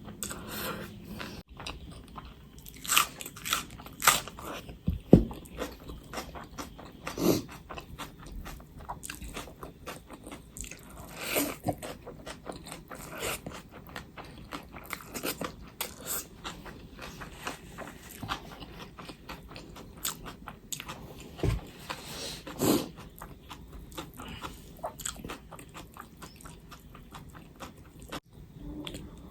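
Close-miked eating: a person chewing and biting food, with many small wet mouth clicks and a few louder bites scattered through.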